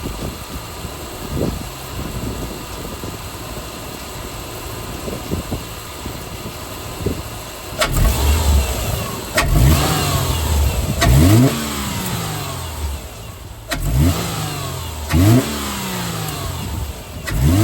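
A 2008 Subaru Legacy 2.5's flat-four engine, fitted with a Cosmo Racing cold air intake, idles steadily, then from about eight seconds in is revved in about six quick blips, each rising in pitch and falling back to idle.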